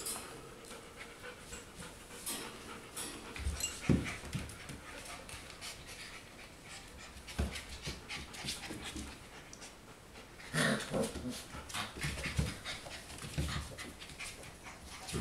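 Four-week-old golden retriever puppies panting and scuffling as they play, with scattered clicks and a few soft thumps.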